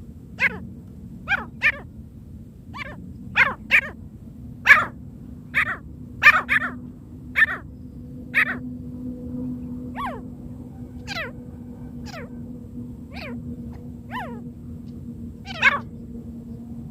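A francolin (teetar) calling: about seventeen short, sharp notes, each sliding quickly down in pitch, repeated at uneven intervals with a quick run of them in the middle. A faint steady hum lies underneath.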